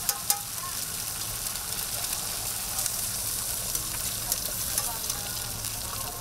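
Oil sizzling steadily on a flat-top griddle where a burger patty, a sausage and an egg are frying, with a couple of sharp clicks of metal tongs against the griddle right at the start and a few lighter ticks later.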